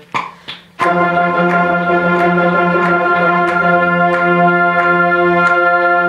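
School concert band of woodwinds and saxophones playing two short notes, then holding one long sustained chord for about five seconds that cuts off together at the end, over a steady low drone note.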